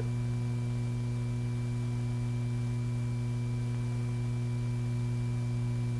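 Steady electrical hum, a low drone with a few faint higher tones held level throughout: the background hum of an old film soundtrack, with no handling sounds from the gun.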